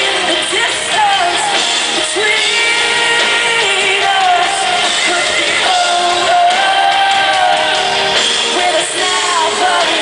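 Female lead vocalist singing live into a microphone over a full pop-rock band, with long held and gliding sung notes, recorded from among the audience.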